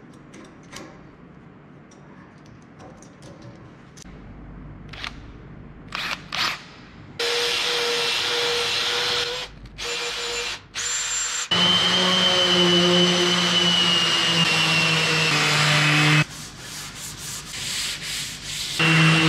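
A few light clicks of tool handling, then a cordless drill running in short spells in the dog holes of a solid ash benchtop. After that a sander runs steadily on the top for about five seconds, stops, and starts again near the end.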